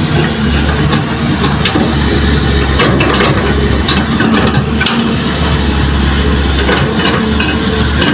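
Kobelco hydraulic excavator's diesel engine running steadily as the machine works its boom and arm over a dump truck, with a few sharp knocks now and then.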